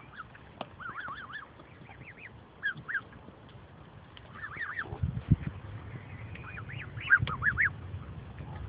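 Canada goose goslings peeping in quick clusters of short, high, rising-and-falling chirps. A low rumble comes in about halfway through.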